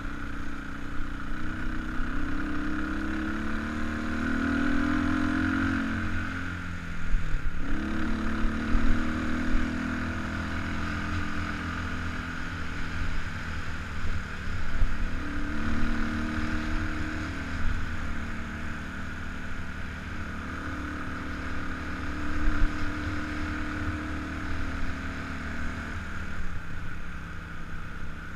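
Kawasaki KLX300 single-cylinder four-stroke dirt bike engine running under way, its pitch rising and falling with the throttle. About seven seconds in the revs drop sharply as the throttle closes, then pick up again. Wind rumbles on the helmet-mounted microphone.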